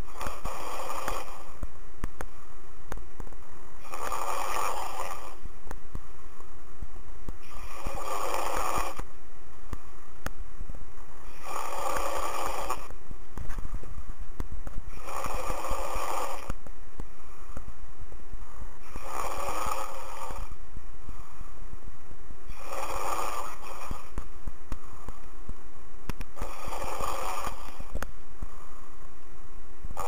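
A person snoring steadily in deep sleep, heard over a phone call: eight snores about a second long, one every three to four seconds, over a constant line hiss.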